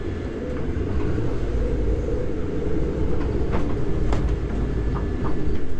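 Strong wind around a sailboat at anchor, heard from inside the cabin as a steady low rumble, with a few light knocks from the boat in the second half.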